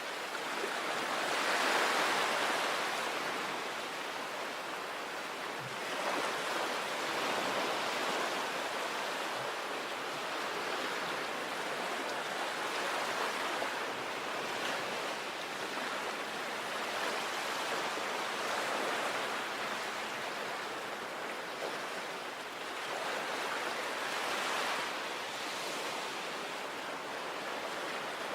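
Sea waves breaking on a shore, a continuous hissing surf that swells up every few seconds as each wave comes in.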